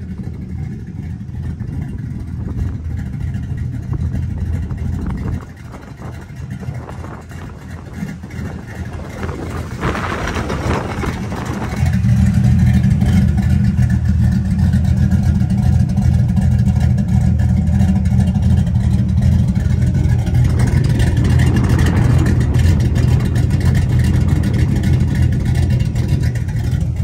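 Chevrolet Silverado's LS V8, fitted with a Brian Tooley Racing Truck Norris camshaft and breathing through a Flowmaster 10 series muffler, idling with a lopey idle that has been tuned smoother, not choppy. It gets noticeably louder about twelve seconds in, as heard close to the exhaust.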